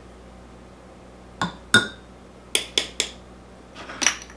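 Metal measuring spoon clinking against glass kitchenware while cornstarch is measured out: two sharp clinks about a second and a half in, three quicker ones a second later, then a soft scrape near the end.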